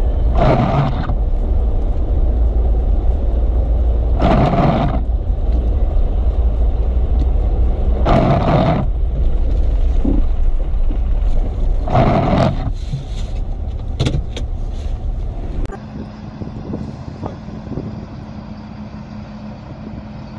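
Car cabin noise while driving on a snow-covered road: a loud, steady low rumble of engine and tyres, with a swish repeating about every four seconds, four times. After about three-quarters of the way through, the rumble gives way to a quieter background with a faint steady hum.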